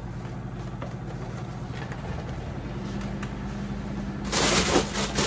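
A chest freezer's compressor running with a steady low electrical hum. Near the end comes about a second of rustling and clatter as food containers are handled.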